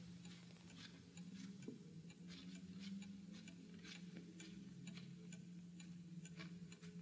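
A clock ticking faintly and evenly, about two ticks a second, over a low steady hum from the old film soundtrack.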